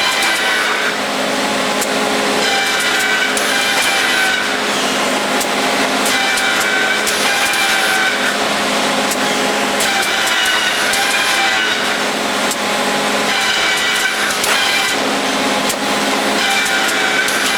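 Industrial bandsaw running and cutting, with a steady motor hum under a noisy rasp. A high, wavering whine comes and goes about every three to four seconds.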